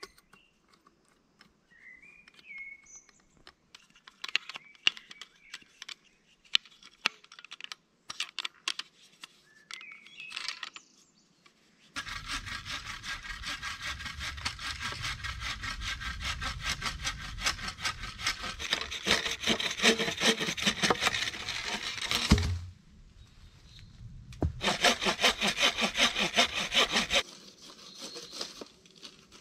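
Wood being cut with a hand saw in two bouts of steady, rapid strokes: a long one of about ten seconds and a shorter one near the end. Before the sawing come scattered knocks and clicks.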